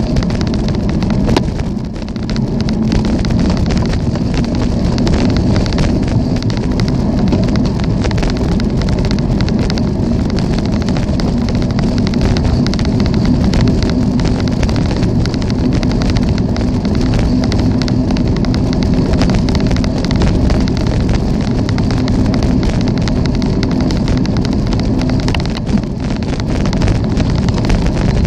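Wind rushing over the microphone and rolling road noise from riding a bicycle, steady throughout, with a low steady hum that drops away near the end.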